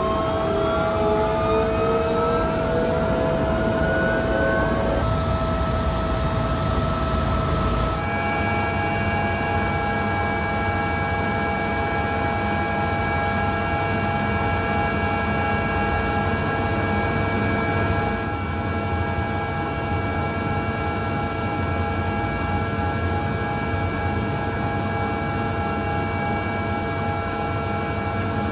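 Leonardo AW169 helicopter's twin turboshaft engines and transmission whining, heard inside the cabin. The whine rises in pitch over the first few seconds, then settles into several steady tones that shift to a new set about eight seconds in.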